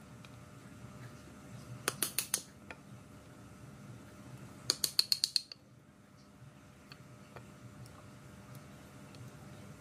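Two short bursts of rapid mechanical clicking, about two seconds and about five seconds in, each lasting about half a second.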